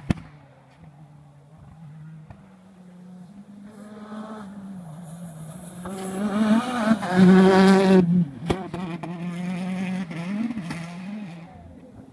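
Rally car engine revving hard on the stage, growing louder as the car approaches and loudest about six to eight seconds in, with the pitch dropping and climbing again at gear changes.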